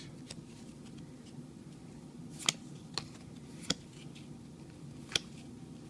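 Yu-Gi-Oh trading cards being handled and flicked through, giving four sharp clicks spread through the middle and later part, over a low steady hum.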